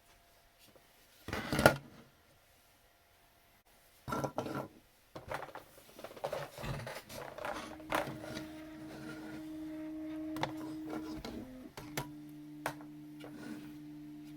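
Knocks and clattering of small hard objects being handled, then a steady machine hum that shifts pitch once near the end.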